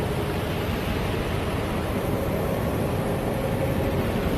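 Steady, unbroken rushing rumble with a faint hum under it: a space-audio clip presented as the sound of the planet Neptune.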